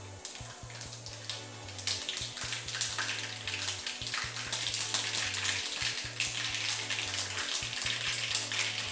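Mustard and fenugreek seeds spluttering and crackling in hot coconut oil in a small kadai. The popping grows denser after about two seconds, the sign that the oil is hot enough and the tempering is under way.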